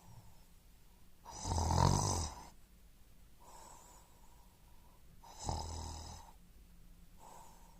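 A person snoring: two loud snores about four seconds apart, with softer breaths in between.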